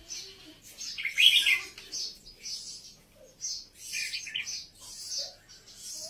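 Red-whiskered bulbul singing: short, high chirping phrases about twice a second, with a louder, fuller phrase about a second in.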